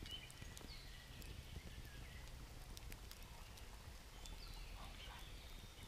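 Faint wood campfire crackling, with scattered small pops, and a few faint bird chirps.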